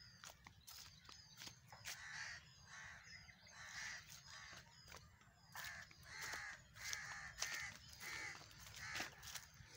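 Crows cawing repeatedly in short calls, coming faster in a run near the middle, with fainter high chirps of small birds.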